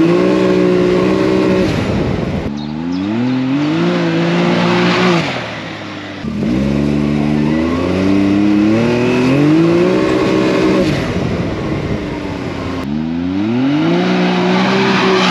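Can-Am Maverick X3 XRS Turbo RR side-by-side's turbocharged three-cylinder engine driven hard in several runs. Each time the pitch climbs quickly and then holds high and steady, and the sound changes abruptly about two and a half seconds in and near the end.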